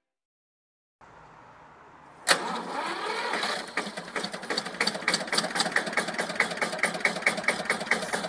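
Engine starting with a sudden burst about two seconds in, its pitch rising briefly, then running with an even beat of about four sharp knocks a second; this is most likely a tractor engine.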